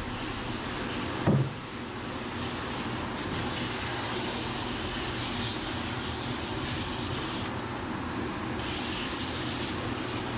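Water spraying steadily from a hose-fed car wash nozzle, rinsing shampoo out of a dog's coat in a stainless steel tub. A single short knock about a second in.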